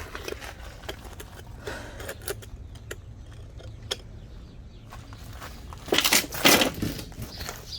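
Scattered metal clinks and taps from suspension parts being handled, then about a second of louder metallic clatter near the end as the Rancho QuickLift strut assembly is maneuvered into place.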